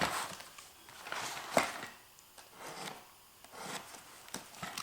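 Handling noises: a few rustles and light knocks, with one sharper click about one and a half seconds in, as packaged roll-cage bars are moved about.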